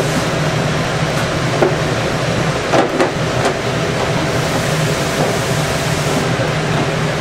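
Steady air-handling noise with a low hum from the room's climate control, which holds the room at a set temperature and humidity. A few light plastic knocks sound a little over a second in and again around three seconds in, as plastic rearing bins and their lids are slid and set on a shelf.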